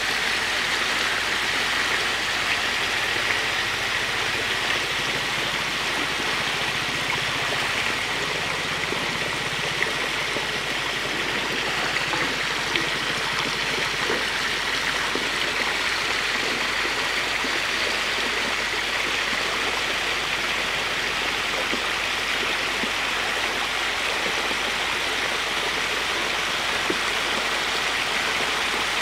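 Steady splashing and churning of water in a shallow tank packed with hybrid magur catfish, the fish thrashing at the surface as feed is scattered, with water pouring in from inlet pipes.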